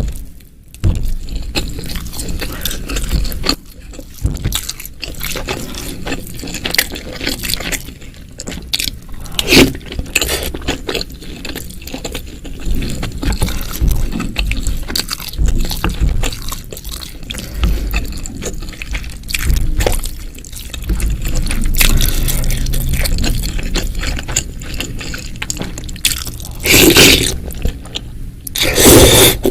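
Close-miked eating of spicy bakso seblak meatball soup: wet, squishy chewing with liquid sounds of the broth and scrapes, in irregular short bouts. Two louder, noisier stretches come near the end.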